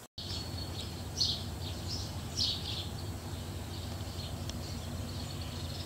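Small birds chirping in short, high calls every second or so, over a steady low hum of background noise.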